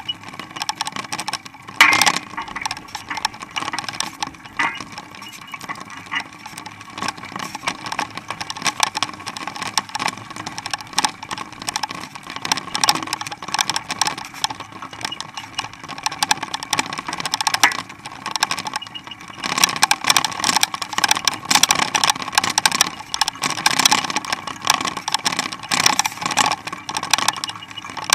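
Continuous dense rattling and clicking of a mountain bike and its Springer dog-bike attachment rolling along a paved road, with harness and collar hardware jingling as two dogs run alongside. There is a sharper clack about two seconds in, and the clatter grows busier in the second half.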